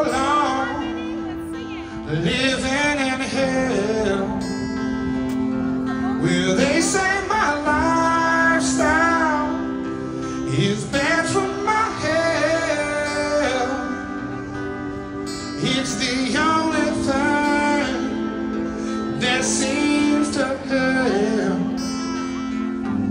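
Live concert: a male singer holding long, wavering notes with vibrato over a band's sustained chords.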